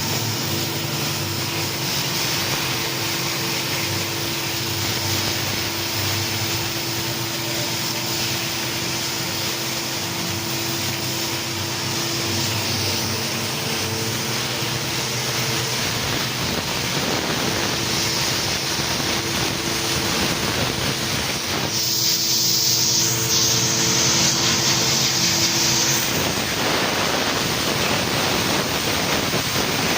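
1500 W fiber laser CNC cutting machine running: a steady hiss with a constant hum underneath, and a louder, sharper hiss for about four seconds in the later part.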